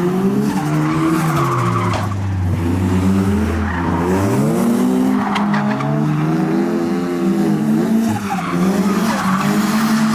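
A car's engine revving hard, its pitch dropping and climbing again every couple of seconds, as it drifts round a roundabout with tyres skidding and squealing.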